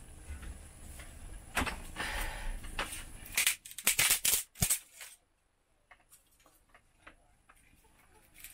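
Dry firewood sticks clattering and cracking: a cluster of sharp wooden clicks and cracks from about three and a half to five seconds in, then a few faint ticks.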